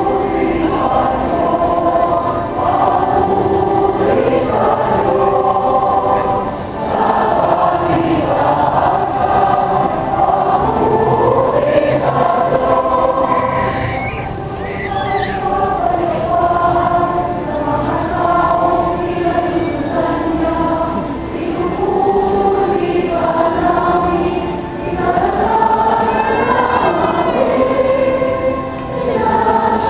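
Church choir singing during Mass, relayed over outdoor loudspeakers, in long held phrases with short breaks between them.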